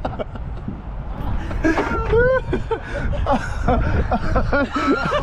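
Men's voices chuckling and talking, the words unclear, over a steady low rumble.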